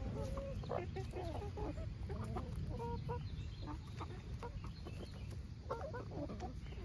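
A flock of hens and young pullets clucking while they peck at scattered cabbage leaves. The short calls come in a cluster over the first few seconds and again near the end.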